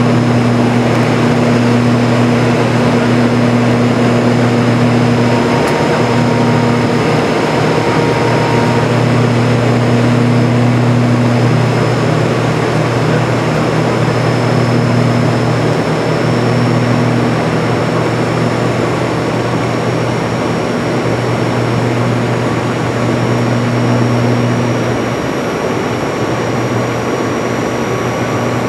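Cabin noise of a CASA C-295's twin turboprop engines on approach to land: a loud, steady propeller drone with a deep hum that waxes and wanes, over a thin high whine that slowly creeps up in pitch. The drone eases slightly near the end.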